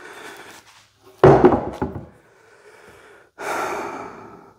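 Heavy walnut slab set down into a wooden flattening jig: one loud wooden thunk about a second in, a few smaller knocks, then a softer rushing, scraping noise near the end as the slabs are shifted.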